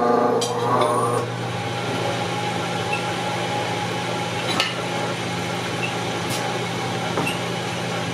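1.5 hp Dayton electric motor starting up and running the drop hammer's belt-driven drum, spinning it faster than wanted. Ringing tones and a short rising whine die away about a second in, leaving a steady hum with a few light clicks.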